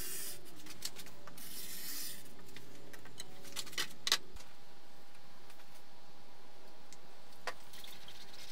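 Faint rustling and a few light clicks from fiberglass cloth being handled and smoothed by hand over a plywood panel, over a steady background hiss.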